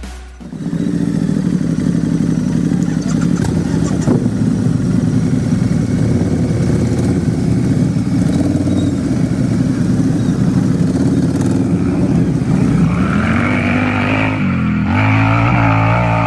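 Motorcycle engine running steadily, then revving near the end, its pitch rising and wavering.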